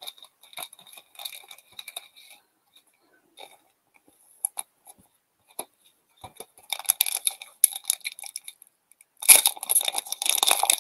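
Foil wrapper of an Upper Deck hockey card pack crinkling and tearing as it is opened, getting louder about two-thirds of the way in and loudest near the end. Before that, only faint rustles and light clicks of cards being handled.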